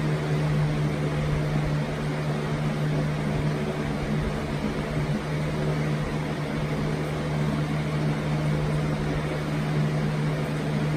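A steady mechanical hum, a constant low drone with an even hiss over it, unchanging throughout.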